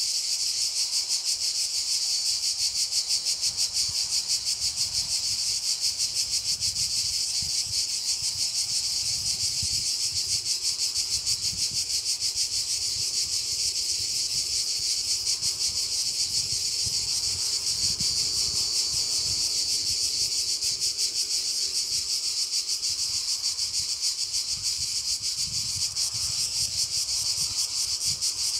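A steady chorus of insects shrilling, a continuous fast-pulsing high-pitched sound that never lets up.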